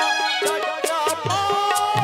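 Live jatra stage band music: a wavering, ornamented melody line over a steady beat of drum thuds and crisp cymbal strokes.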